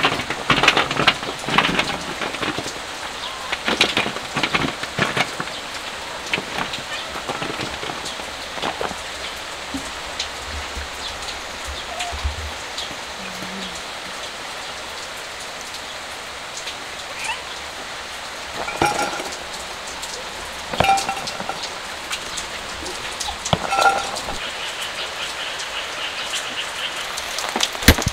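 Steady rain falling on surfaces. In the first few seconds, food pieces clatter onto a metal tray. Three short cat meows come later.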